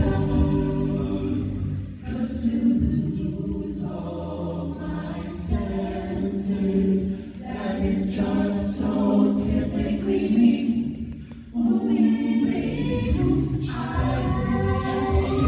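High-school a cappella group singing in close harmony, with a sung bass line and sharp vocal-percussion hits. The sound drops briefly about eleven seconds in, then comes back.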